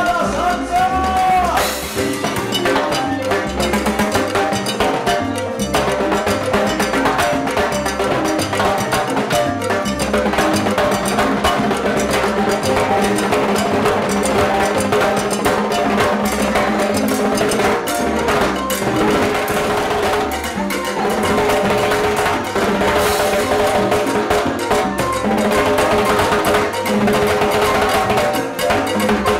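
Live salsa band playing with the percussion to the fore: timbales struck with sticks, with dense sharp clicks on the shells and rims, over congas, drum kit and the rest of the band.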